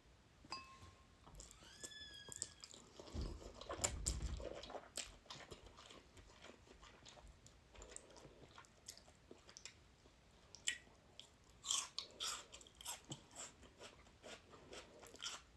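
Close-miked mouth sounds of someone eating noodles: soft, wet chewing and smacking clicks, with a low thump about three seconds in and a busier run of chewing clicks near the end.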